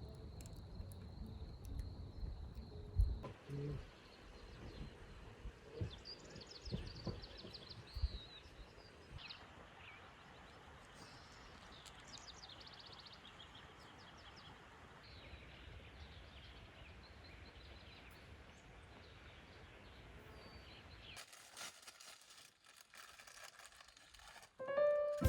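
Quiet outdoor forest ambience with birds chirping now and then and a few soft knocks in the first several seconds.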